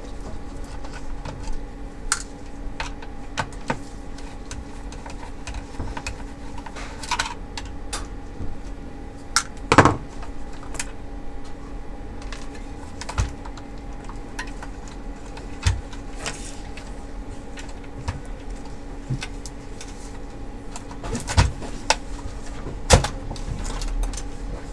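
Scattered clicks, taps and knocks of a screwdriver and gloved hands working on an opened projector's plastic chassis and circuit board, with one louder knock about ten seconds in, over a steady hum.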